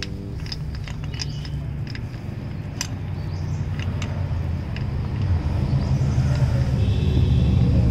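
Low rumble growing steadily louder, with a few light clicks as the bottle jack's threaded ram extension is screwed up by hand against the car's jacking point.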